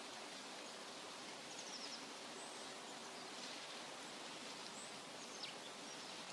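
Forest ambience: a soft steady hiss with faint, short high bird chirps scattered through.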